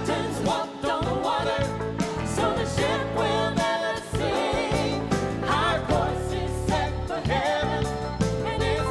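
Gospel choir singing with band accompaniment, vocal lines sliding and ornamented over a steady bass and instruments.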